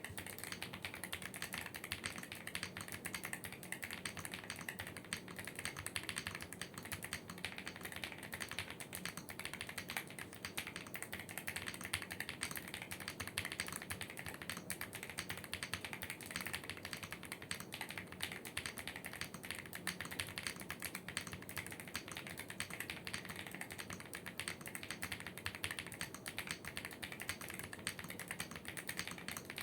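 Continuous fast typing on a Leobog Hi75 alloy mechanical keyboard with tactile switches (factory-lubed Tecware Wraith Orange, MMD Princess on some keys) and Aifei keycaps: a dense, even stream of key clacks.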